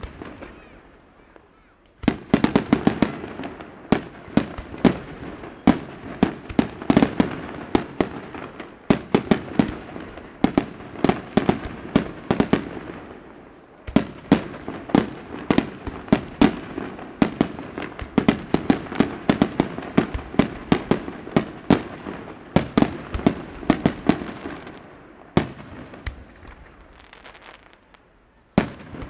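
Aerial firework shells bursting in a rapid barrage, several sharp bangs a second, with a brief lull about halfway through; it starts about two seconds in and dies away near the end.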